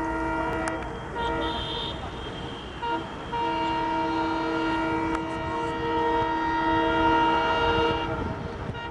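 WDM-3D diesel locomotive's horn sounding as the train approaches at speed: a few short blasts, then one long blast of nearly five seconds, over the low rumble of the locomotive.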